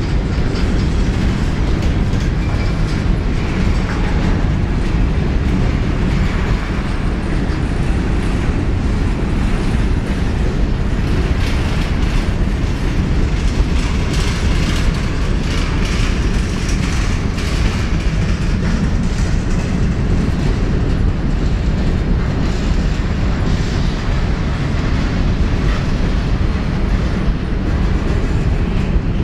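Freight train of covered grain hopper cars rolling past close by: a steady rumble of wheels on rail, with irregular clicks as the wheels cross rail joints.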